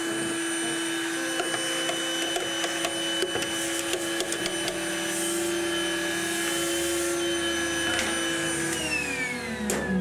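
Canister vacuum cleaner running steadily, then winding down near the end, its motor whine falling in pitch as it spins down.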